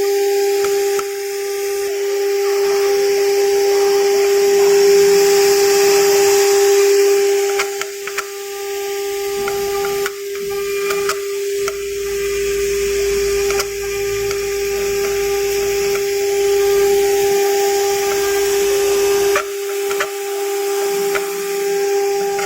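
CNC router spindle running with a steady, high-pitched whine while the machine cuts, over a hiss of cutting and a few small clicks; the level dips and recovers several times as the cut goes on.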